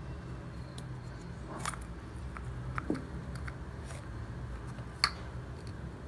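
A few sharp plastic clicks from a tube of effervescent vitamin C tablets being opened and a tablet taken out, the loudest click about five seconds in, over a low steady hum.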